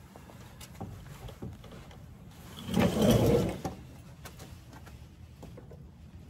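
Oil filter on a 4.7L 2UZ-FE V8 being turned off by a gloved hand after being broken loose: light clicks and rubbing, with a louder muffled swell lasting about a second, about three seconds in.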